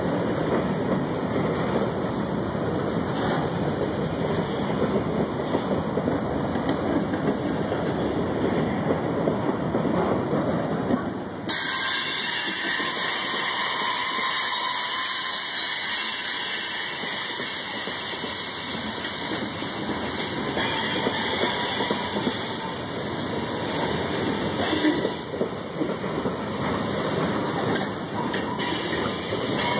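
Freight train's covered hopper cars rolling past, with the steady running noise of steel wheels on rail. About eleven seconds in, the sound turns suddenly brighter and higher-pitched.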